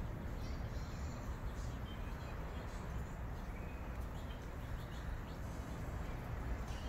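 A steady low rumble, with faint birds chirping here and there.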